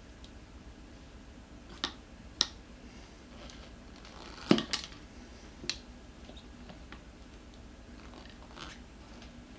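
Tyre levers clicking and knocking against the wheel rim while a tight tyre is pried off a scooter wheel. There are several separate sharp clicks, the loudest a double knock about four and a half seconds in.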